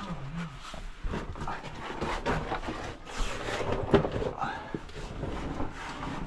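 A person breathing hard with short grunts while scrambling through a rocky cave passage, with scrapes and knocks of shoes and hands on rock.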